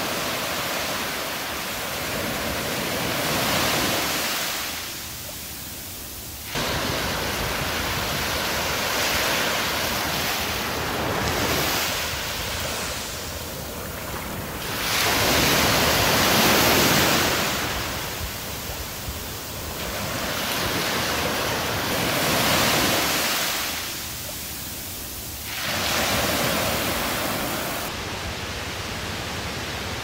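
Small waves breaking and washing up a sandy beach, the surf noise swelling and fading every few seconds.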